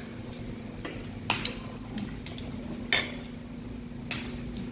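Dishes and tableware clinking and clicking as food is eaten: about four short sharp clicks, spaced a second or so apart, over a steady low hum.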